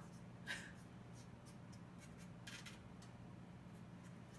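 Near silence: a few faint, short rustles and scrapes from a pastry crust being handled in a foil pie tin, over a low steady hum.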